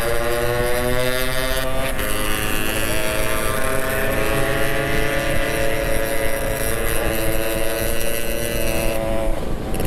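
Yamaha RX-King's two-stroke single-cylinder engine under way, its pitch climbing under acceleration with two short breaks at gear changes about two and three seconds in, then holding steady at cruising speed before the throttle eases off near the end.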